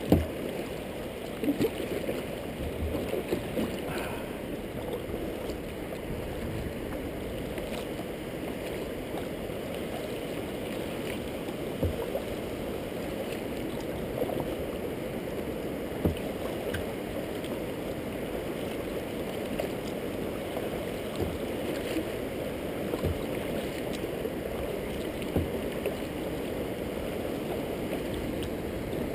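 Kayak being paddled: steady swishing and lapping of river water against the hull as the paddle blade dips, with a few short knocks now and then.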